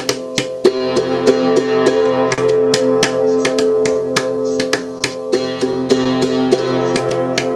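Kalimba being played: plucked metal tines ringing in a melody, with sharp percussive clicks keeping a steady beat.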